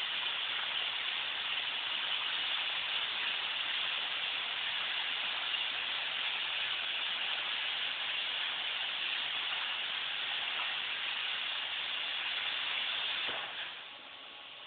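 Plasma cutter drag-cutting 1/16-inch stainless steel sheet with its tip dragged on the surface: a steady hiss of the compressed shop air through the torch, stopping abruptly about a second before the end.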